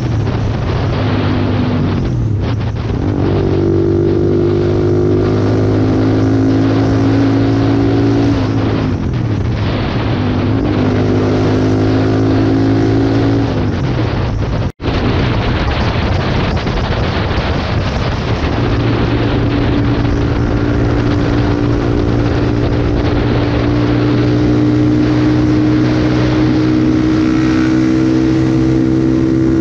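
Motorcycle engine running hard at highway speed, with strong wind buffeting the microphone. The engine note dips and climbs again twice early on, then rises slowly and steadily; the sound cuts out for a split second about halfway through.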